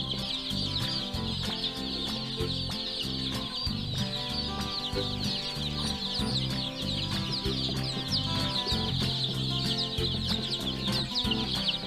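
A brood of days-old domestic chicks peeping all together, many short high cheeps overlapping without a break, over soft background music.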